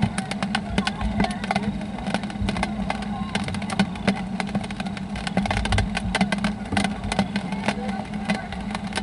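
Raindrops tapping close to the microphone in many irregular ticks, over gusts of wind rumble and a steady low hum.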